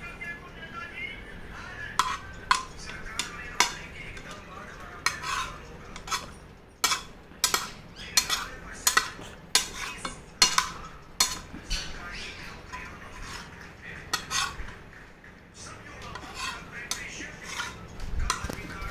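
Steel spoon scraping and clinking against a frying pan while scooping noodles, in quick, irregular strokes that begin about two seconds in and pause briefly later on.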